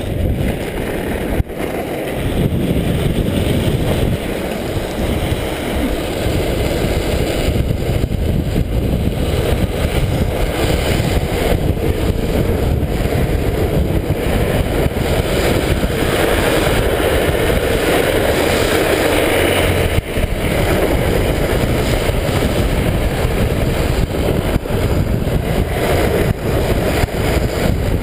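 Steady rush of wind on the microphone at speed, over the rumble of a drift trike rolling fast down an asphalt road. A sharp knock comes about a second and a half in and another about twenty seconds in.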